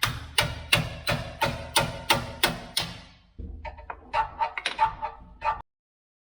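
Repeated sharp knocks with a slight ring, about three a second, in two runs with a short pause between; the sound cuts off abruptly near the end.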